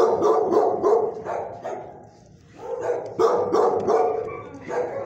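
Dogs barking in a kennel block: a run of quick barks, a short lull about two seconds in, then another run of barks.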